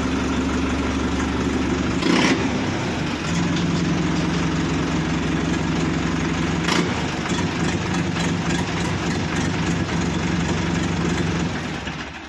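Sonalika tractor's diesel engine running with its silencer removed, open exhaust, at a loud, steady idle. About two seconds in there is a brief louder burst, after which it runs at a slightly higher pitch, and near the end the sound dies away.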